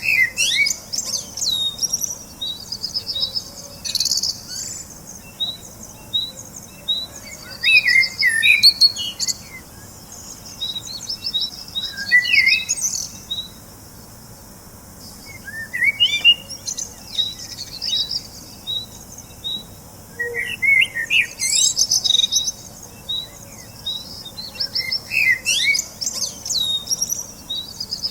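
Several small birds singing and chirping together, with one short chirp repeated steadily about twice a second and louder bursts of song every few seconds.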